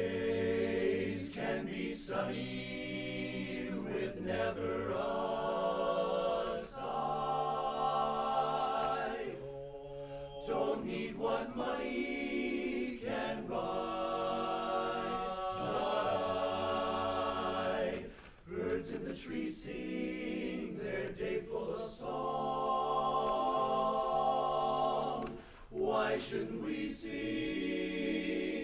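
Men's barbershop chorus singing a cappella in close chord harmony, sustained chords moving phrase by phrase with short breaks between phrases.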